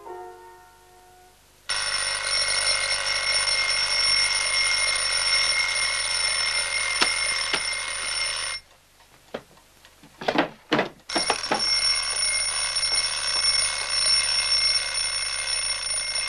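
Mechanical alarm clock bell ringing continuously, cut off suddenly for a couple of seconds during which a few knocks are heard, then ringing again.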